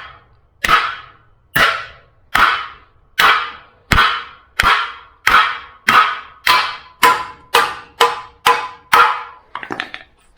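Soft copper hammer striking a seized steel suspension part again and again, about fourteen sharp metallic blows with a short ring. The blows come about one every 0.8 s at first and quicken to about two a second near the end, as the part is driven free.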